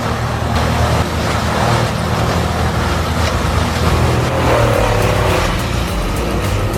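Morbark M20R whole-tree chipper running under load as it shreds a tree into chips: a steady low engine drone under a dense, noisy grinding of wood.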